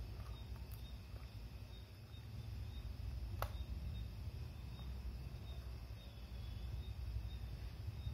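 Quiet background: a low steady hum with faint, evenly repeated high chirps, and one sharp click about three and a half seconds in.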